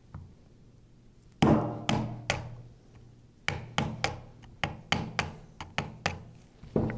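A metal tool knocking again and again on the star nut of a Graco E-10 displacement pump to loosen it: about a dozen sharp hits with a short ring after each, the loudest about a second and a half in.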